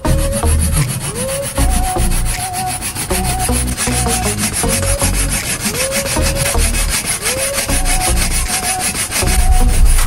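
Hand saw cutting lengthwise through a wooden dowel held in a vise, rasping back and forth in steady strokes, with a brief rising tone on many of the strokes.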